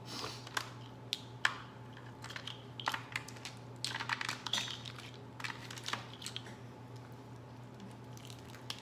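Crawfish and crab shells crackling, clicking and crinkling as they are handled and cleared off the table, in irregular clusters over the first six seconds that then thin out.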